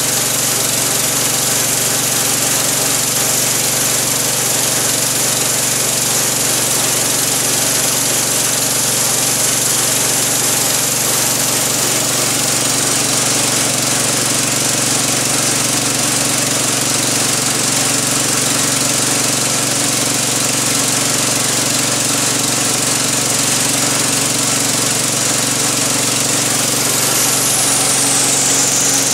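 A 1985 Wood-Mizer LT-30 portable band sawmill running steadily, its engine driving the band blade through a log. Near the end a high whine slides down in pitch.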